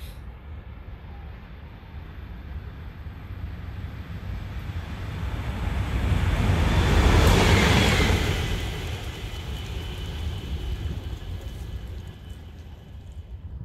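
A red electric locomotive passing on the far track, rising to its loudest about seven seconds in and then fading away. Beneath it runs a steady low rumble.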